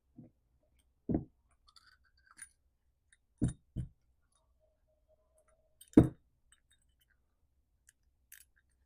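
Carburettor parts and tools being handled on a workbench during reassembly: a few separate knocks and clinks at irregular intervals, the loudest about six seconds in, with faint ticks between.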